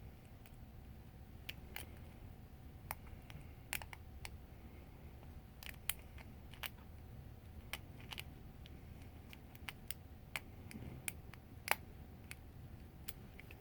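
Faint, irregular metallic clicks and ticks from a lock pick and tension wrench working the pins inside a lock cylinder during picking.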